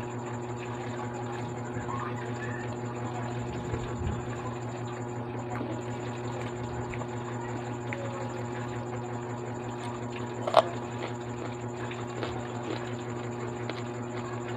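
Quiet chewing and mouth sounds while eating fries and a cucumber stick, with faint scattered clicks over a steady low hum, and one sharp click about ten and a half seconds in.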